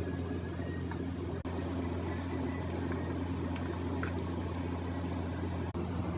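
A steady low mechanical or electrical hum with a faint hiss over it, breaking off for an instant twice.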